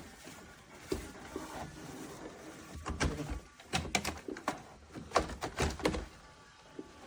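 A run of sharp knocks and clunks, coming thickest between about three and six seconds in and loudest just after five seconds.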